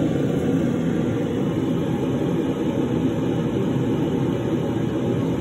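A steady low rumble that holds level and does not change.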